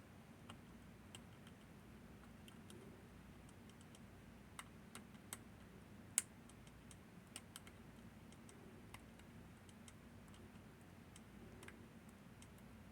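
Faint, irregular clicks and ticks of lock-picking tools working the levers of a Northern Telecom NE-22 six-lever lock, with one sharper click about six seconds in.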